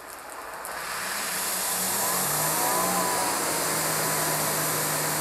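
Greenworks 2300 psi electric pressure washer starting up: the motor and pump rev up over the first couple of seconds, the hum stepping up in pitch, then run steadily. Water hisses from a 15-degree nozzle.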